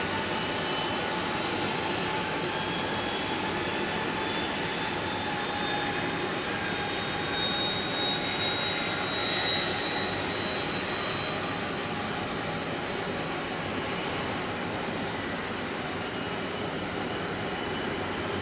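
Airbus A330 jet engines running: a steady rush of jet noise with several thin whining turbine tones that drift slightly in pitch.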